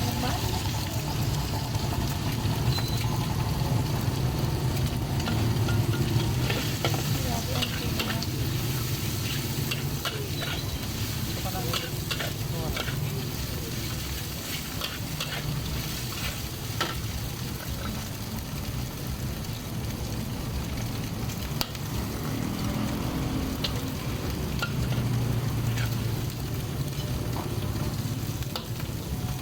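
Shrimp pad thai being stir-fried: steady sizzling with frequent short clicks and scrapes of a spatula against the pan, over a low steady hum.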